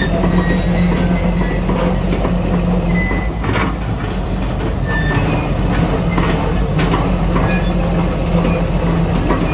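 Komatsu PC200LC excavator's diesel engine running steadily as it travels on steel tracks, with short squeaks and scattered clanks from the track chains and rollers.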